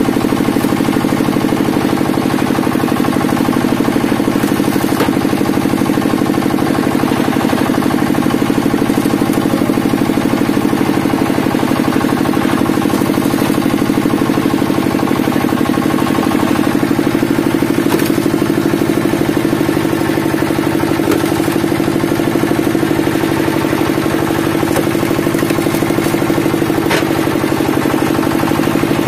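Hydraulic wood splitter's power unit running with a steady drone as the wedge drives through logs, with a few faint sharp cracks of splitting wood.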